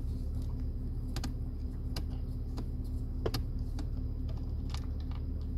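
Scattered light clicks of a Phillips screwdriver turning a screw out of the plastic cup-holder trim, over a steady low hum.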